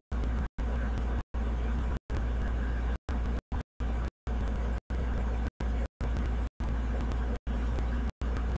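Steady low hum with hiss, broken into short stretches by frequent cuts to dead silence, several in every second.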